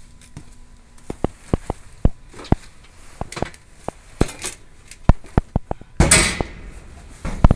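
Hands rummaging through stored belongings: a run of sharp knocks and clinks as objects are picked up and set down, with a short loud rustle about six seconds in.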